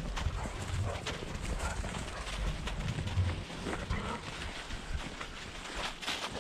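Footsteps crunching through snow at a steady walking pace, about one step every 0.7 seconds, with dogs running through the snow close by.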